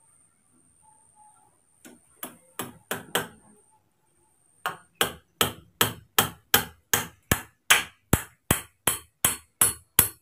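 Hammer blows on a green bamboo rung: four or five strikes about two seconds in, a short pause, then a steady run of blows at about two and a half a second.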